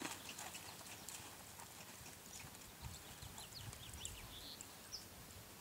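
Hooves of a horse walking on arena sand: faint, soft footfalls. Short high chirps come and go over them.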